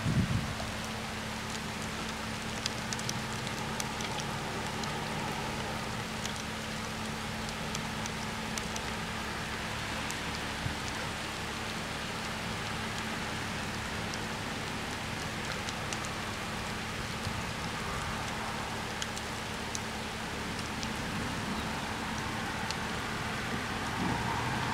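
Steady rain falling on the road and surroundings, a continuous hiss with scattered drop ticks, over a low steady hum.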